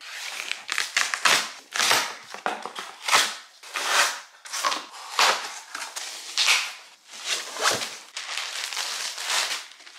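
A knife slitting packing tape and cardboard on a large box, then the box flaps and inner cardboard being pulled and torn open: a dense run of short scraping, ripping and crackling noises.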